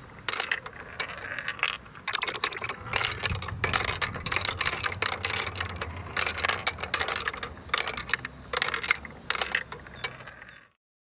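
Glass marbles rolling and clicking through a wooden marble run, its tilting wooden tracks knocking as they tip to lift marbles up a step. A rapid, irregular clatter of clicks and knocks that cuts off suddenly near the end.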